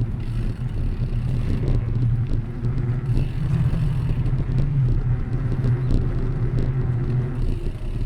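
Steady low rumble of wind buffeting the microphone and rolling-wheel noise while riding along a path.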